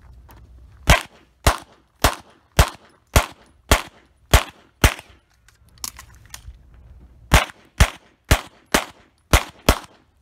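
Rapid 9mm pistol fire from a CZ SP-01: a string of eight shots about two a second, a pause of about two and a half seconds, then six more shots in quick succession.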